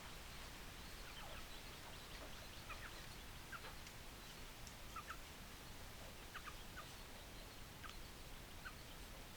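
Chickens making short, faint calls, scattered every second or so over a steady background hiss.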